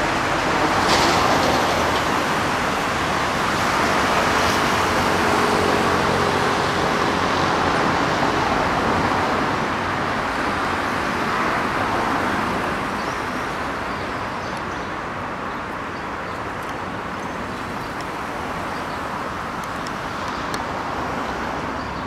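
Steady road traffic noise, louder in the first half and easing off after about thirteen seconds.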